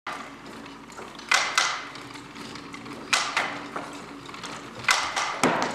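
Wooden handloom being worked, knocking sharply in pairs about every one and a half to two seconds.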